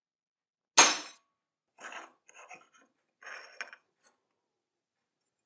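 A sharp crack with a brief ringing tail as a piece of scored aluminium plate is snapped off, followed by a few fainter clinks and scrapes of the metal pieces on the steel bench.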